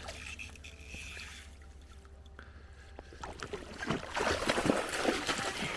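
Water splashing and sloshing, sparse at first and then busy and irregular from about three seconds in, with a low steady hum beneath.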